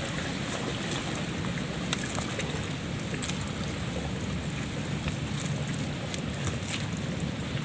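Steady outdoor wind noise rumbling on the microphone, with a few faint light clicks from the wire-mesh crab trap being handled.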